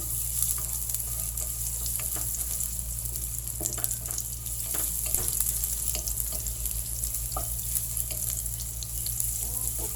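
Minced garlic and ginger sautéing in hot oil in a pan: a steady sizzle, stirred, with scattered short clicks from the stirring.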